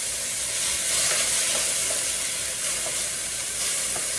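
Diced vegetables sizzling in a hot electric skillet as chopped red bell pepper is tipped in and stirred with a wooden spatula: a steady frying hiss with a few faint ticks.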